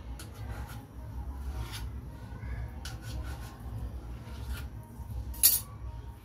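Hands pressing and dividing chapati dough on a kitchen counter: soft rubbing and light taps, with one sharp click near the end.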